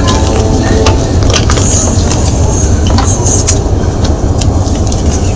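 Gym chalk being crushed and crumbled close to the microphone: dense crunching and crackling with frequent sharp cracks over a steady low rumble.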